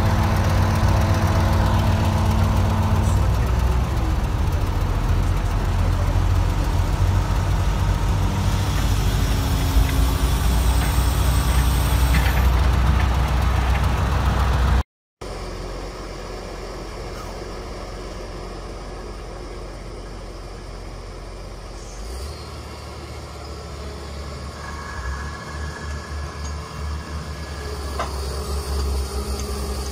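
Diesel engine of a truck-mounted crane running steadily and loudly; about halfway it cuts off abruptly, and a quieter heavy-vehicle diesel engine takes over, pulsing and growing louder near the end.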